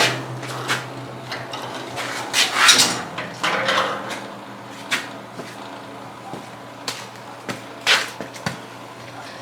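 Scattered clunks and knocks of the welding table being handled and turned over onto its newly fitted casters, over a steady low hum.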